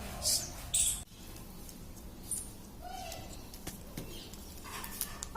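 Pet parrot making two short, scratchy hiss-like chirps in the first second, then a few faint clicks and one brief soft note.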